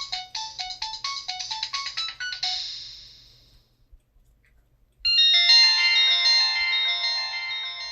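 Kyocera Blade phone's built-in ringtones playing through its speaker: a quick melody of short, evenly paced notes ends about three seconds in and fades out, then after a short pause a second, louder ringtone of held, overlapping notes starts about five seconds in and slowly dies away.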